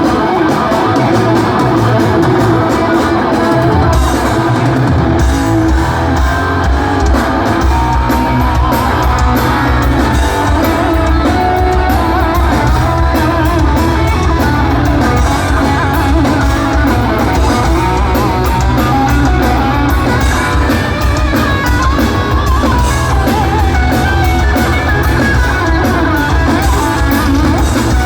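Live heavy metal band: distorted electric guitars playing over bass and drums, with the low end coming in heavier about four seconds in.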